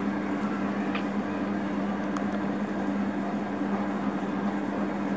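Steady mechanical hum of a running appliance in the room, with a couple of faint clicks about one and two seconds in.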